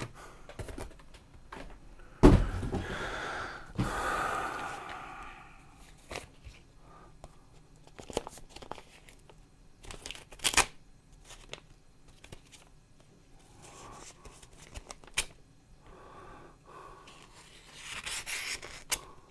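Meal-kit packaging being handled: plastic liner bags and paper rustling and crinkling, with a sharp thump about two seconds in and scattered clicks and scrapes.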